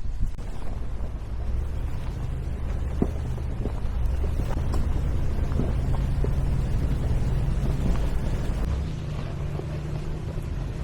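Off-road SUV engine running at low speed on the trail. Its note rises about two seconds in and drops near the end, with a few short knocks along the way.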